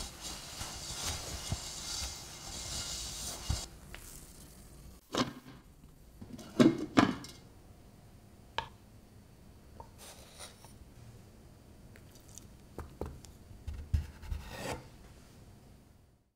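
A cloth towel rubs for the first few seconds. Then come kitchen handling sounds: a wooden spatula scrapes and knocks against the pan and a wooden board as a mini pizza is lifted and set down. The two loudest knocks come about seven seconds in, followed by a few lighter taps.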